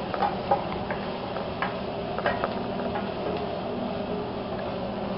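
Sliced onions frying in oil in a stainless steel pan, stirred with a spatula: irregular scraping clicks of the spatula against the pan over a steady sizzle.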